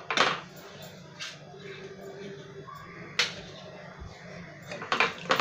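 Steel ladle stirring a watery onion masala in a non-stick kadai, knocking sharply against the pan a few times, with more knocks near the end, over a steady low hum.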